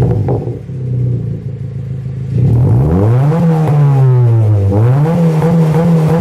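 Honda City 1.5 i-VTEC four-cylinder engine with a straight-pipe exhaust being free-revved while parked: it drops back to a quieter idle, then is blipped up and down and revved again, holding steady at raised revs near the end.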